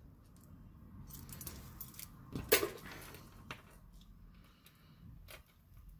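Metal costume jewelry chains and beads jingling and clicking against one another as pieces are lifted and sorted by hand, with a sharper clack about two and a half seconds in.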